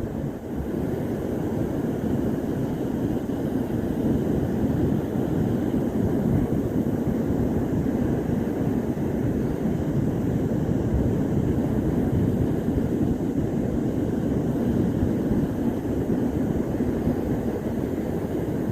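Ocean surf, heard as a steady low rumble.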